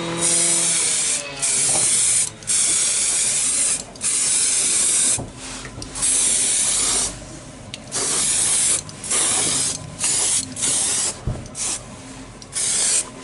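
Aerosol can of primer spraying in about ten short hissing bursts, each lasting from a fraction of a second to just over a second, with brief gaps between passes.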